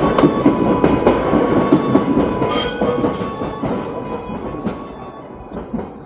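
JR E233-series electric commuter train running past, its wheels clacking over rail joints with a steady high tone alongside. The sound fades steadily as the train moves away.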